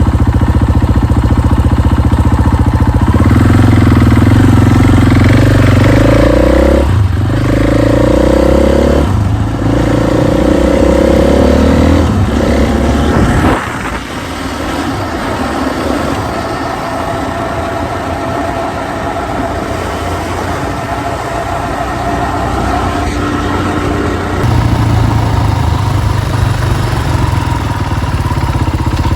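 KTM EXC enduro motorcycle engine running loudly. Its pitch rises and falls through the first half with two brief dips. About halfway through it drops to a quieter, steadier note, then picks up again near the end.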